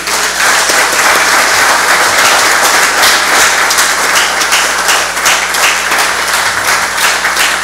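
A roomful of people applauding: steady, dense clapping after a speech.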